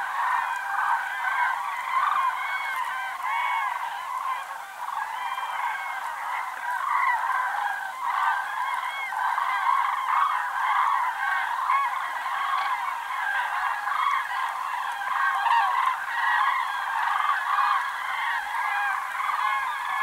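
A large flock of common cranes calling in flight, with many calls overlapping in a continuous chorus.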